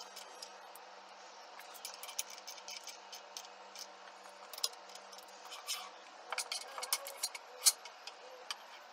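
Scattered small metallic clicks and taps from a screwdriver tightening the clamp screws against the pantograph's metal guide tubes and from the metal parts being handled. The clicks come thicker about six to eight seconds in, with one sharp click near the end.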